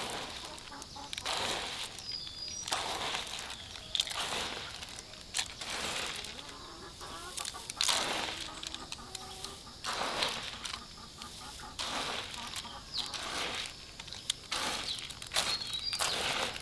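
Repeated short rustling strokes, roughly one every second or so, with chickens clucking between them.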